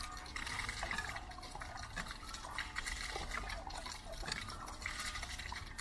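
Water pouring from the spout of a hand-operated cast-iron pump and splashing onto a stone and a muddy puddle below, a steady splashing stream.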